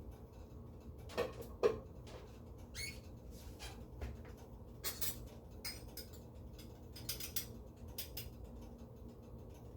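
A spoon scraping and clinking against a pan of beans poriyal as it is scooped for tasting: a string of short, separate scrapes and taps, the two loudest a little over a second in.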